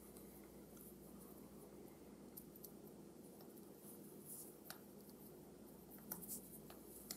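Near silence with a few faint ticks and light rubbing as fingers work a rubber gasket into the metal shell of an Edison Model C reproducer.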